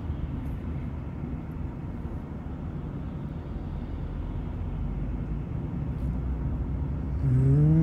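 Steady low engine and road rumble inside the cabin of a Lexus LC500 rolling slowly in traffic, with no brake squeal audible. Near the end a short pitched hum rises and then holds.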